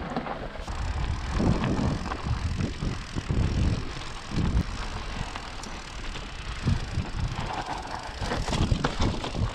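Electric mountain bike rolling over a loose, rocky scree trail: knobby tyres crunching over stones and the bike rattling in uneven bursts.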